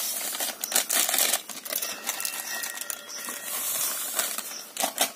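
Dry semolina (suji) being poured into a mixing bowl: a continuous grainy rustling hiss studded with small clicks.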